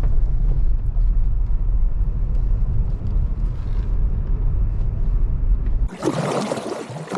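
Steady low rumble of a vehicle in motion, cut off abruptly about six seconds in by water splashing and sloshing.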